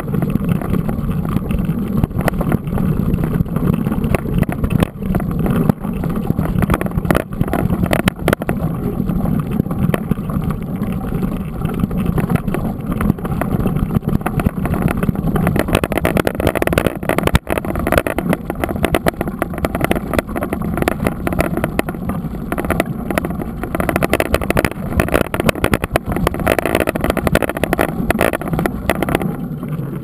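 Mountain bike rolling over a rough dirt and stony track, heard from a bike-mounted camera: steady wind rush and tyre rumble with constant small knocks and rattles from the bike and mount.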